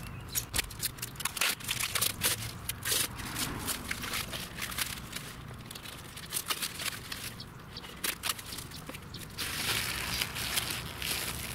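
Thin protective plastic film being peeled off a plastic hood protector and crumpled by hand: a run of irregular crackles and crinkles, giving way to a softer, steadier hiss near the end.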